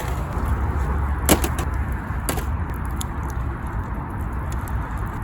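Steady low rumble of nearby road traffic, with a sharp click about a second in and a weaker one a second later.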